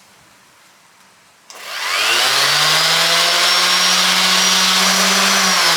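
Electric sander switched on about one and a half seconds in, its motor winding up to a loud, steady whine. It runs free, not yet on wood, then is switched off near the end and starts winding down.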